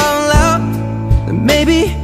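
Background pop song: a singer holds a long wavering note over bass and drums, then starts a new phrase about one and a half seconds in.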